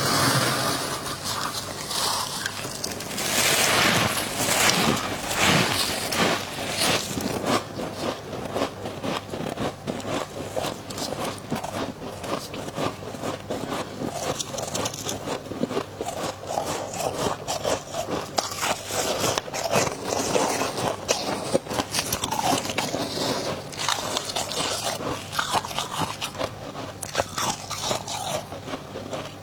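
Close-up scraping and crunching of flaky freezer frost as it is scraped off and eaten, a dense run of crisp crackles without pause.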